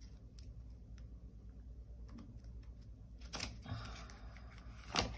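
Tarot cards being handled on a table: faint scattered clicks and light rustles, with a louder rustle about three and a half seconds in and a sharp click near the end.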